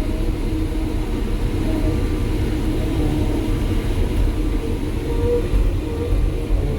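Cat 312 hydraulic excavator running under load, its diesel engine and hydraulic track drive giving a steady low rumble with faint wavering tones as the machine tracks in reverse.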